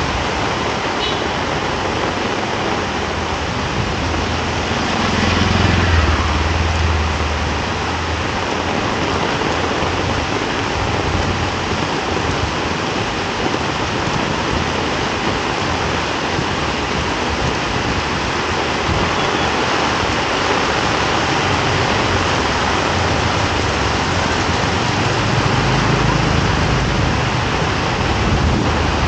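Heavy tropical rain pouring onto a wet street, a dense, steady hiss. Passing motor vehicles add a low engine rumble about five seconds in and again near the end.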